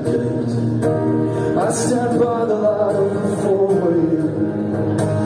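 A man singing live while strumming an acoustic guitar, the voice carrying a slow melodic line over the steady strummed chords.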